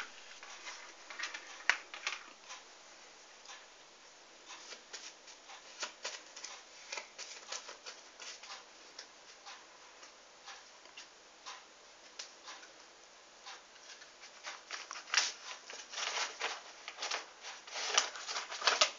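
Playing cards being handled in the hands: irregular soft clicks and rustles, growing busier and louder near the end.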